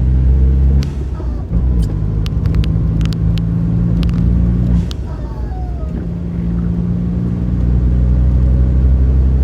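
Car engine and road noise heard while driving, a steady low drone that dips briefly about a second in and again for about a second near the middle. Several sharp clicks sound in the middle.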